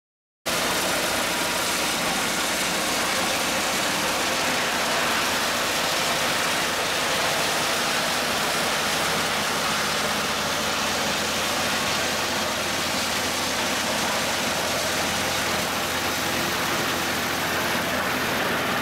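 Engine of a homemade trailer-mounted wood chipper running steadily at a constant speed, cutting in after a half-second gap.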